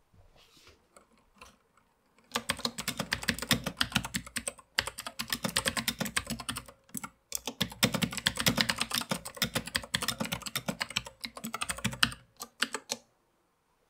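Fast typing on a full-size mechanical keyboard with grey keycaps, a rapid run of key clicks. It starts about two seconds in, breaks off briefly twice, and stops shortly before the end.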